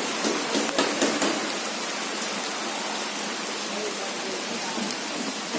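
Steady hiss of falling water, with faint voices in the first second.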